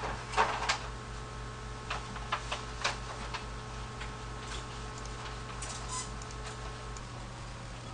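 Scattered light clicks and taps, loudest in a quick pair about half a second in, then a handful more spaced irregularly over the next few seconds, over a steady low electrical hum.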